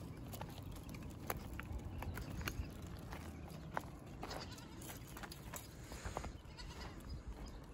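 A herd of goats on the move, bleating now and then, with scattered short clicks of hooves on stony ground.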